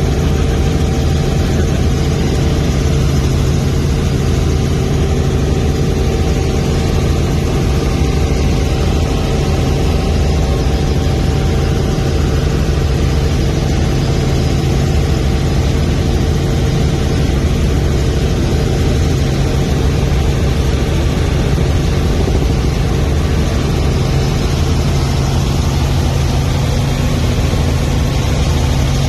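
Helicopter engine and rotor running at a steady drone in flight, heard from inside the cabin. The sound stays constant, with a low hum and a few steady higher tones over a rushing noise.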